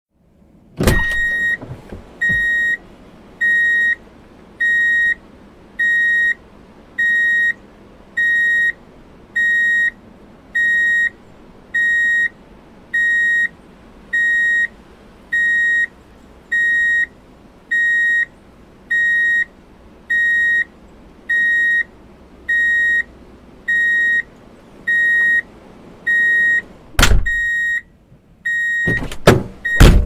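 Vehicle reverse warning beeper sounding a single high tone about once a second, each beep about half a second long, over a low steady background noise. A loud thump comes just before the beeping starts, and more thumps come after it stops, near the end.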